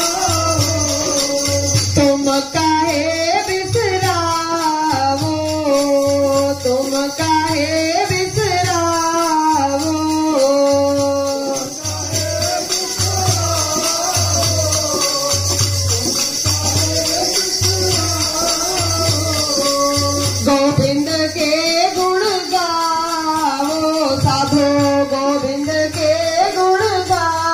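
Sikh kirtan: a voice singing a gliding devotional melody over sustained harmonium chords, with a steady high jingling percussion and a low regular beat keeping time.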